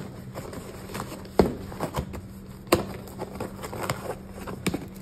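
Cardboard shipping box being turned and handled on a wooden tabletop: scattered light knocks and scrapes, the two loudest about a second and a half and nearly three seconds in.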